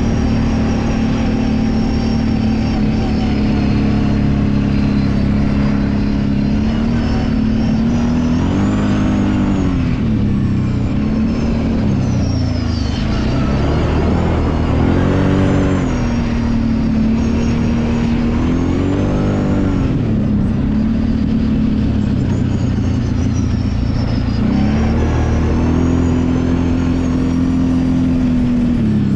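Kawasaki Brute Force 750 ATV's V-twin engine running on the trail, its revs rising and falling several times as the throttle is worked, settling back to a steady note between.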